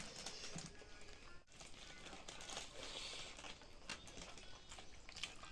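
A person chewing chicken close to the microphone: wet mouth noises with small irregular smacks and clicks.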